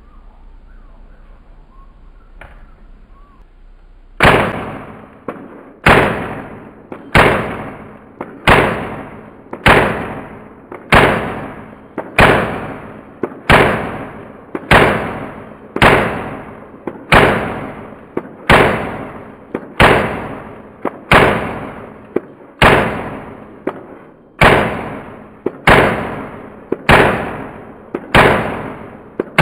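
Colt M4 .22LR rifle firing a long string of shots, about four seconds in, evenly spaced roughly every second and a quarter, each crack trailing off in a long fading tail.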